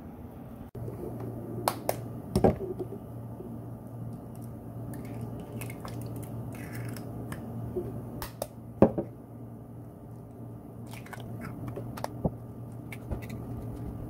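Scattered sharp clicks and taps of hands handling objects close to the microphone, the loudest about two and a half seconds and nine seconds in, over a steady low hum.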